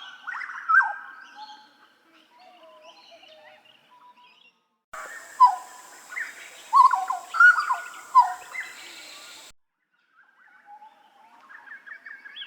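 Papuan butcherbird (jagal Papua) singing: loud, clear whistled notes with quick rising and falling glides. They come in three stretches separated by short silent gaps, about four and a half seconds in and just before ten seconds.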